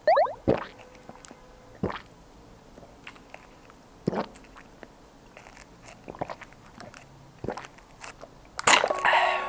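A person drinking a cocoa drink through a straw from a small carton: sucking and swallowing, with wet mouth clicks and gulps, and a louder slurp near the end.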